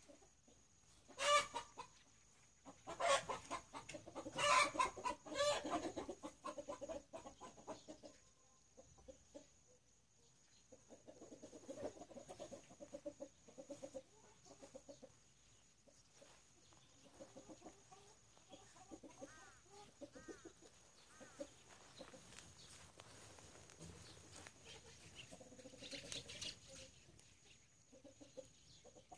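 Chickens clucking. A loud run of cackling calls fills the first few seconds, then softer, scattered clucking follows, with another short burst near the end.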